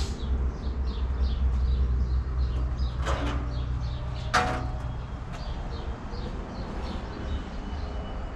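Two sharp knocks, about three and four and a half seconds in, the second the louder. Under them is a low steady rumble, and small birds chirp faintly throughout.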